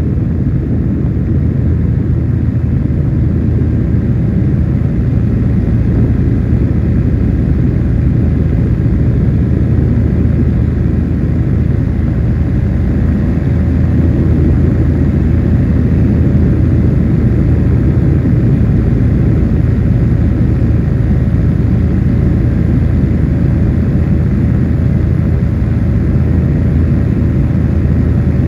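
Steady drone of a light aircraft's engine in flight: a constant low hum with several steady tones and an even rushing noise over it, never changing in level.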